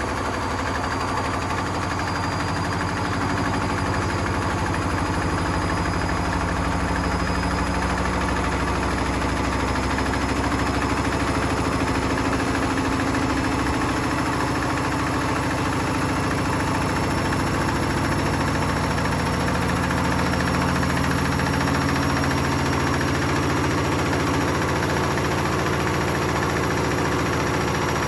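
Hotpoint Smart Tech WMFUG742 washing machine running a wool cycle with bricks in the drum: a steady machine hum and rumble, with a faint whine slowly rising in pitch.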